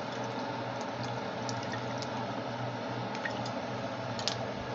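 Hot sauce dripping from a bottle into a pot of black-eyed peas in seasoned water: small drips and ticks over a steady hum, with a sharper click about four seconds in.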